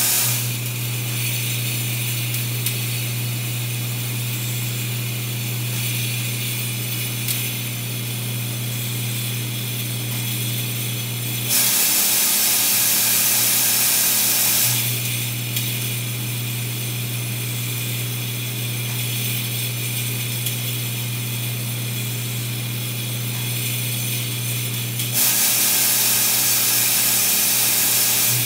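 Glass vial feeding machinery running: a vibratory bowl feeder and linear track humming steadily with small glass vials rattling through them. Twice, about twelve and twenty-five seconds in, a louder hissing rattle lasts about three seconds while the hum drops back.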